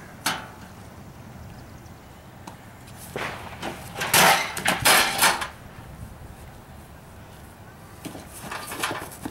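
Wooden crate and boards banging and clattering as they are swung and struck: one sharp knock just after the start, a loud run of impacts about four to five seconds in, then more clattering near the end.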